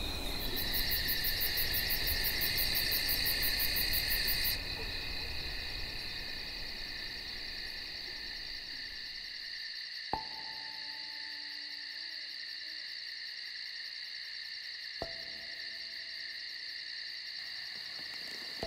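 A steady chorus of night insects chirring, louder for the first four and a half seconds and then quieter. Two faint clicks, each followed by a short low tone, come about ten and fifteen seconds in.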